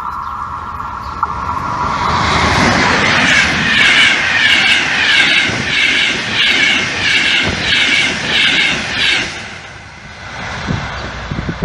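Electric passenger train of locomotive-hauled coaches approaching and passing at speed close by. The wheels clatter rhythmically, about twice a second, for several seconds, and then the sound fades as the train draws away.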